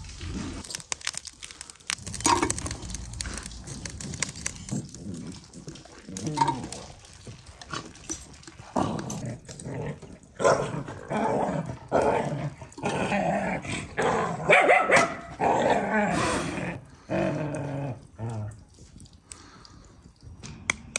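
Dogs barking and growling in a run of repeated calls, thickest through the middle.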